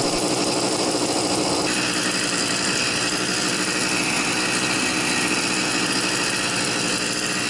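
Brush cutter's small engine running steadily while cutting grass, its exhaust quietened by a moped's stock muffler fitted to it.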